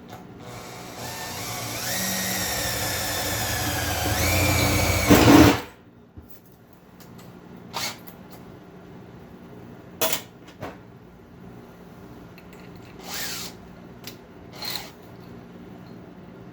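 Electric drill running for about five seconds while drilling a hole in a gas tank, its motor pitch rising and the sound loudest just before it stops. A few short clicks and knocks follow.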